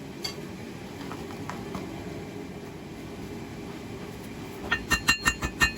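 A steady low rumble, then near the end a fast run of about seven blacksmith's hammer blows on hot steel over an anvil, each one ringing.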